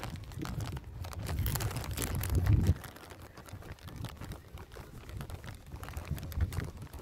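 Footsteps on an asphalt path with scuffs and clicks of the phone being handled. A low rumble on the microphone swells and cuts off sharply a little under three seconds in.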